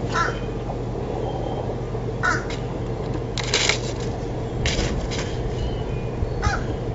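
About five short, harsh bird calls spaced a second or so apart, over a steady low hum.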